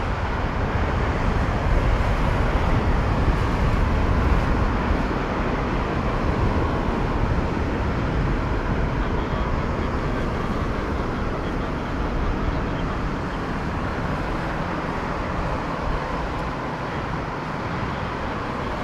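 Boeing 747-8's four GEnx-2B jet engines at climb thrust as the airliner climbs away after takeoff: a steady deep rumble, loudest a few seconds in, then slowly fading as it recedes.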